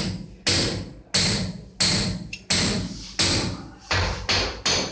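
Repeated hammer blows at a steady pace, about one every two-thirds of a second. Each strike rings briefly with a thin high tone. The blows come faster near the end.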